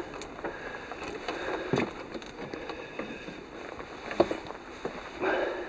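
Scattered footsteps and light knocks on a sailing yacht's deck and cockpit, with the clearest knocks about two seconds in and about four seconds in.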